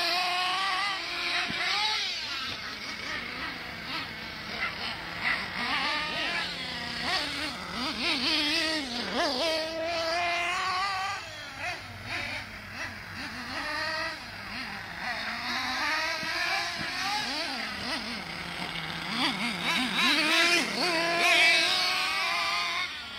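Two HPI Trophy Truggy nitro RC trucks racing, their small glow-fuel engines buzzing at a high pitch and revving up and down again and again as they accelerate and back off.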